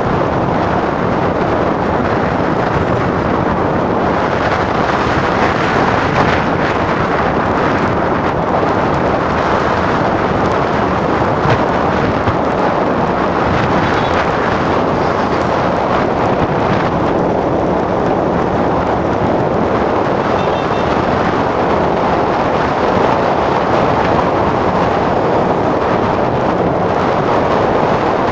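Wind rushing over the microphone on a moving motorcycle, a steady loud roar mixed with the motorcycle's running engine and road noise.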